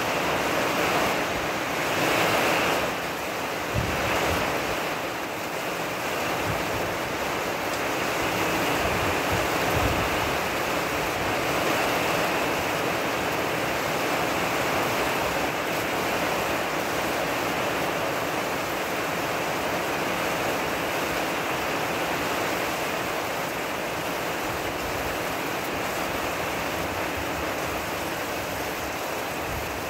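Steady rain shower falling on the leaves of a wooded hillside: a dense, even hiss, a little louder in the first few seconds.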